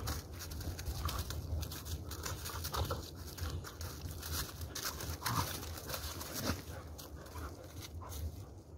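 Two dogs play-wrestling on dry grass: scuffling, pattering paws and rustling, with a few short throaty vocal grunts from the dogs.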